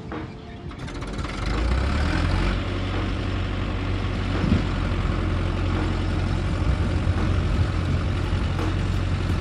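Bulldozer's diesel engine running, growing louder over the first second or two and then holding at a steady low drone.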